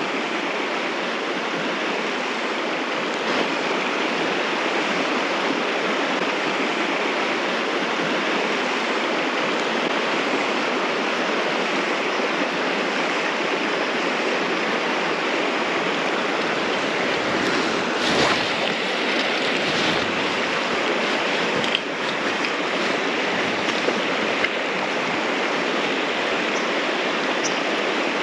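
River water rushing steadily over a shallow stony riffle, with a few faint brief knocks.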